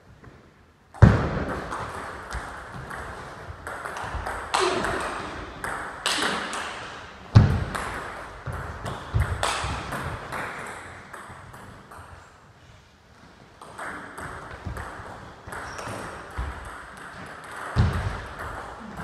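Table tennis rallies: a plastic ball clicking off rubber-faced bats and bouncing on the table in quick runs of hits, with a few heavier thumps among them.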